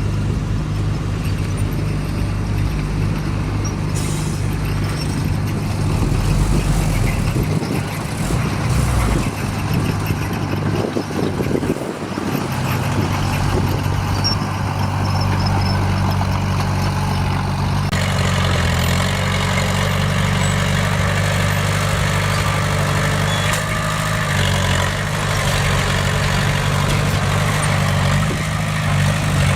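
Heavy diesel engine of earthmoving machinery running steadily under load, its note dipping briefly about twelve seconds in. From about eighteen seconds a clattering hiss joins the engine.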